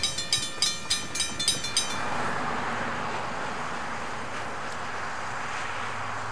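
Railroad grade-crossing bell ringing about four strokes a second, cutting off abruptly about two seconds in. It is followed by a steady, even rushing noise.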